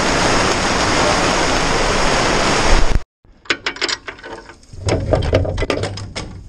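Heavy rain falling on a steel livestock truck crate, a loud, even hiss that cuts off suddenly about halfway through. It is followed by scattered metallic clicks and knocks as a latch on the side of the crate is worked and a panel swung open.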